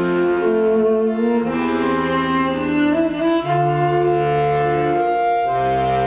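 Viola and accordion duo playing slow, sustained chords, the harmony shifting about every two seconds.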